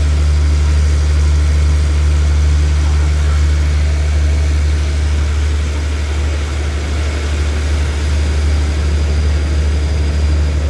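Diesel engine of a standing passenger train idling with a steady, deep hum.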